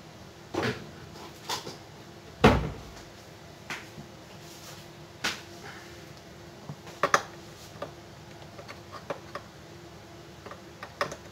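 Scattered knocks and clicks of handling, about ten in all, the loudest a low thud about two and a half seconds in, over a faint steady hum.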